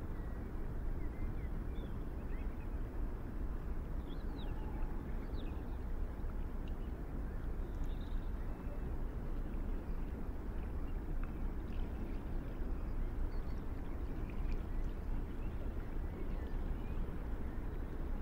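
Steady low outdoor rumble, with a few faint short high chirps scattered through it.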